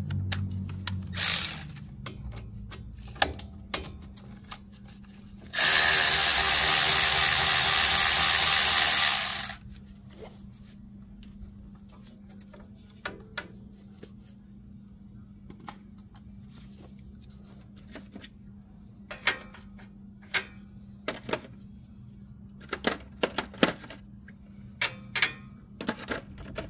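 Power tool run in one burst of about four seconds, a few seconds in, working a bolt loose on the truck's front suspension. Scattered clicks and metallic knocks of hand tools and sockets come before and after it.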